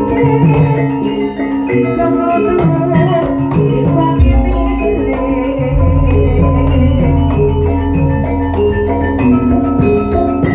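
Live Javanese gamelan playing: bronze metallophones and gong-chimes ring over drum strokes, and a deep gong is struck about four seconds in and rings on.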